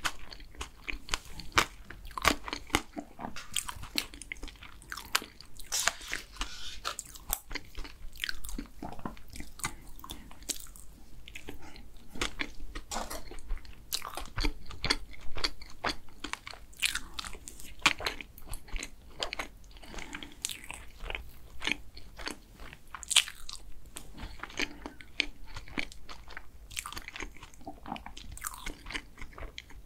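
Close-miked eating sounds of a person chewing and biting chocolate cake and ice cream: many short, sharp wet clicks from the mouth, several a second.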